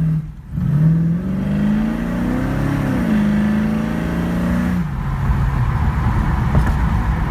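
1968 Mustang's 347 stroker V8 on FAST EZ-EFI, heard from inside the car while driving. The revs climb, step down about three seconds in, hold, then fall away to a low steady rumble at about five seconds as the engine comes off throttle.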